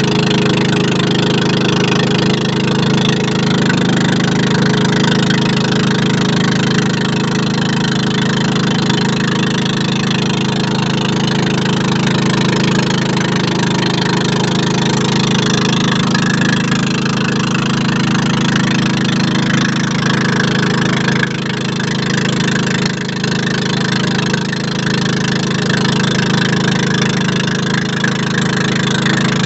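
Small boat's engine running steadily as the narrow wooden boat travels at speed. It is a constant low drone, easing slightly for a couple of seconds about two-thirds of the way through.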